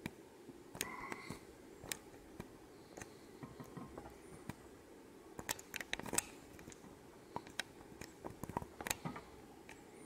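Scattered faint clicks and taps over quiet room tone, bunched into a quick run about halfway through and another near the end.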